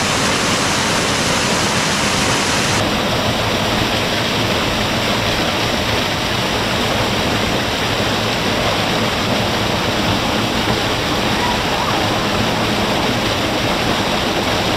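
River water rushing steadily, a loud, even wash of flowing water.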